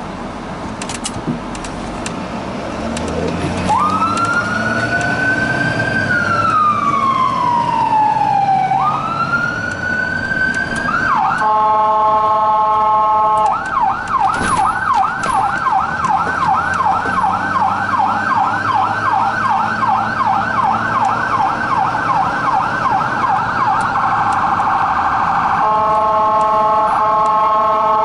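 Emergency-vehicle siren heard from inside the cab of a diesel Ford Super Duty rescue truck, with the engine running underneath. About three seconds in the siren starts a slow wail, rising and falling twice. It then gives a short steady horn blast and switches to a fast yelp of about three sweeps a second, with another horn blast near the end.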